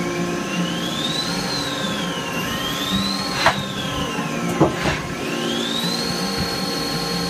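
Hardinge T-42 CNC lathe running through a cut, its high whine rising and falling in pitch as the spindle changes speed, then holding steady near the end. A few sharp clicks come around the middle.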